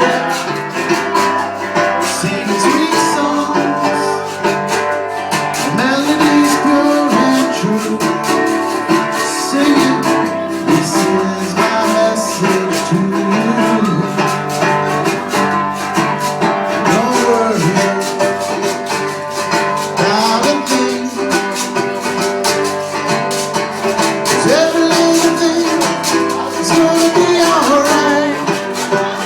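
Live acoustic guitar strummed steadily, with a voice singing over it.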